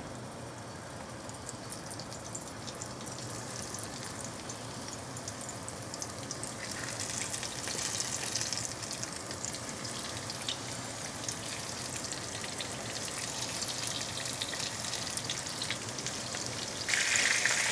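Flour-dredged fish pieces sizzling and crackling in hot oil in a frying pan, being lightly pan-fried. The sizzle grows louder as more pieces are laid in, about seven seconds in and again near the end.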